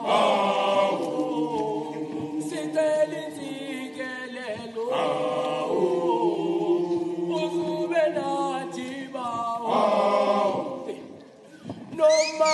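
A group of voices singing a cappella in harmony, with long held notes in chant-like phrases. The singing fades briefly near the end and then comes back in.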